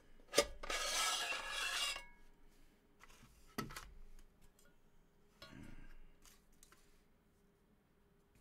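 Drive tray of a USB 3.0 external optical-drive enclosure sliding out of its shell with a scraping rub for about a second and a half. Scattered clicks and light knocks follow as the parts are handled and set down.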